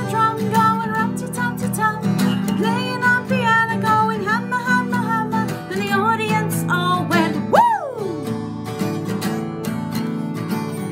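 Acoustic guitar strumming a steady accompaniment, with a woman's wordless sung melody over it for the first two-thirds. About two-thirds through, one high note swoops sharply up and falls away, then only the guitar carries on.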